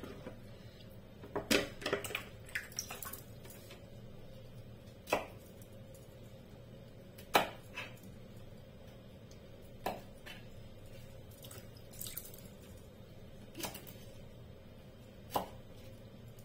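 Kitchen knife cutting broccoli on a plastic cutting board: single sharp knocks of the blade against the board, several close together early and then one every couple of seconds.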